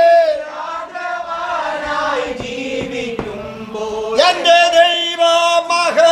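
A man singing a slow Malayalam Christian hymn in long held notes. The singing drops to a softer, lower passage in the middle, then comes back loud on a higher note about four seconds in.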